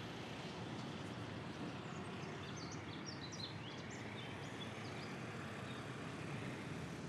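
Outdoor ambience: a steady hum of distant traffic, with small birds chirping briefly from about two to four and a half seconds in.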